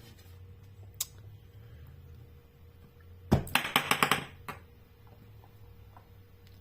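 Hard plastic clicking and rattling as a toy figure is handled: a single click about a second in, then a quick loud run of clicks lasting about a second.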